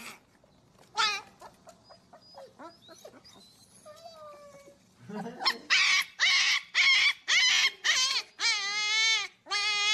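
Siberian husky puppy howling: a short call about a second in and faint little whines, then from about halfway a quick run of loud, high-pitched howls, ending in one longer wavering howl.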